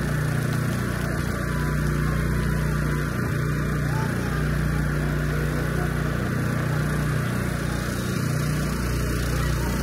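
A steady low mechanical hum with a constant drone, running evenly throughout.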